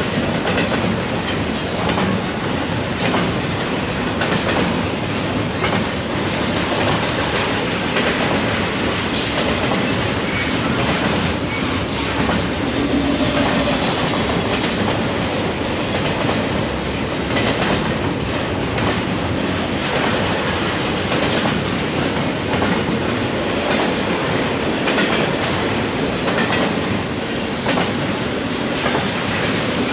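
Freight train rolling past, its wheels clattering over the rail joints in a steady stream of clicks, with a brief high wheel squeal now and then.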